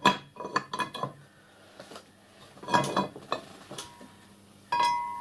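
Metal clinks and knocks as a motorcycle brake hub is fitted into a steel three-jaw lathe chuck. There is a string of sharp clinks, some with a short ring, and a louder ringing clink near the end.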